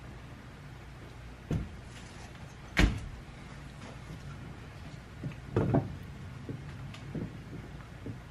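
Wooden boards knocking and clunking as they are handled and set together, about seven separate knocks with the loudest about three seconds in, over a steady low hum.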